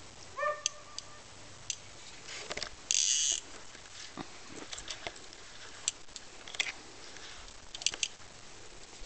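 A fishing reel's ratchet clicker buzzes briefly about three seconds in as line is pulled off it. Scattered small clicks of handling the rod and reel follow, and a brief tone sounds near the start.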